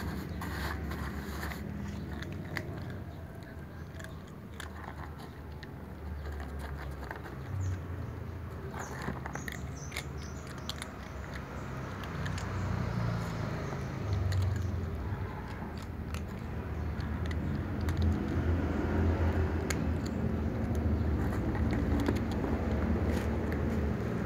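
Two cats chewing dry kibble, with scattered small crunches, over a steady low background rumble.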